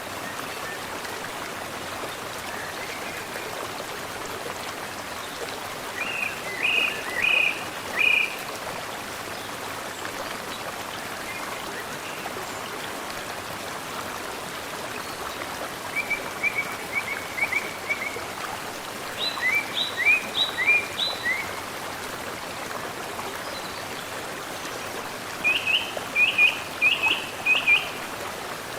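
Mountain stream flowing steadily, with a small bird singing four short phrases of quickly repeated high chirps over the water.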